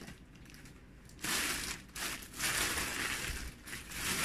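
Clear plastic packaging crinkling and rustling as clothes are handled, in three bursts about a second apart.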